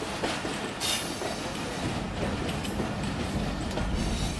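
Pakistan Railways passenger coach running along the track, heard from an open coach window: a steady rumble of wheels on rails with occasional clatters, one sharp clattering hiss about a second in. The low rumble grows fuller near the end.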